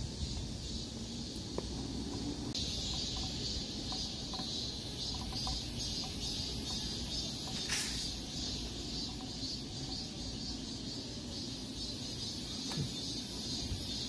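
A chorus of insects in the trees: a high, shrill sound pulsing a few times a second, which comes in abruptly about two and a half seconds in, over a low rumble of camera handling.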